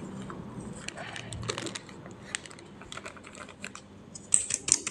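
Hands handling a flour-filled balloon and craft materials: scattered light clicks and crinkly taps, with a louder quick cluster of clicks near the end.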